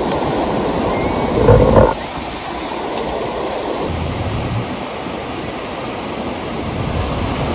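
Ocean surf breaking and washing in at the shore, a dense steady rush of water. A brief louder low rumble comes about one and a half seconds in.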